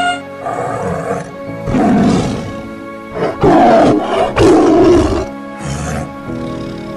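Tiger roaring in several loud bursts, the loudest about three and a half and four and a half seconds in, over steady background music.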